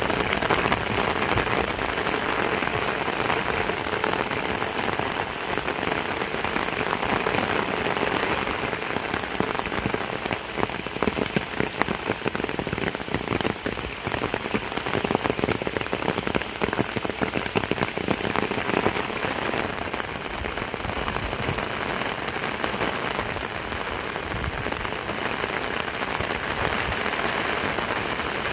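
Heavy rain falling steadily: a dense patter of individual drops over an even hiss.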